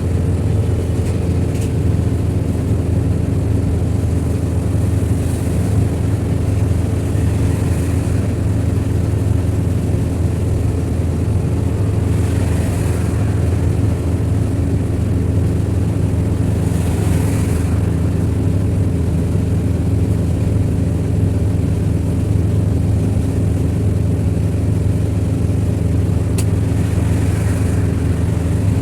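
Steady drone of a road vehicle's engine and road noise while driving, a constant low hum with no change in speed. A couple of faint hissing swells pass about halfway through.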